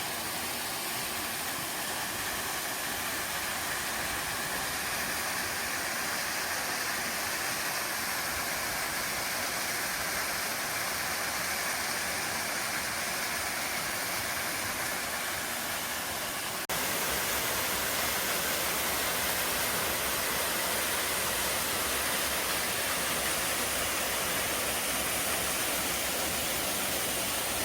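Waterfall pouring into a rocky valley pool: a steady rush of falling water. About 17 seconds in, it switches abruptly to a louder, deeper rush.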